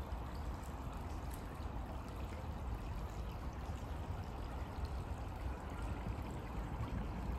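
Small forest river flowing: a steady rush of running water.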